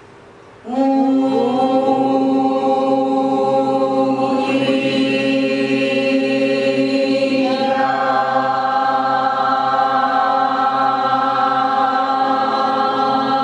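Voices chanting long held notes together, like a choir intoning a mantra. It starts abruptly about a second in, and the chord shifts about four and a half seconds in and again near eight seconds.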